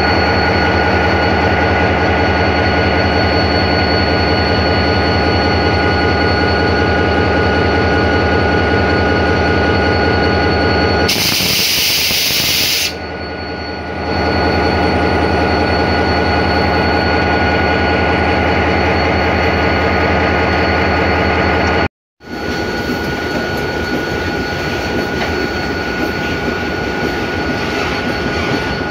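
Diesel freight locomotives passing close by with their engines running: a steady, loud drone with several steady whining tones over it. About 11 seconds in the low drone thins and a brief hiss comes in; near 22 seconds the sound drops out for a moment and resumes as a rougher, noisier rumble of another passing locomotive and its wagons.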